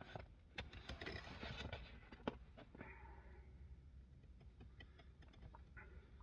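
Faint handling and eating sounds of a pizza slice being picked up and bitten into: a soft rustle with small clicks, one sharp click about two seconds in, then faint ticks.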